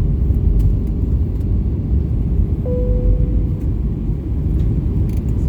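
Airbus A320 cabin noise heard from a passenger seat: a steady low rumble of the engines and airflow. About halfway through, a single cabin chime rings and fades over about a second, and a light click sounds near the end.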